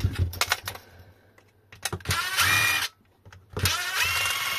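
Electric screwdriver running in two bursts of about a second each, backing out the screws of a plastic e-bike battery case, after a few handling clicks.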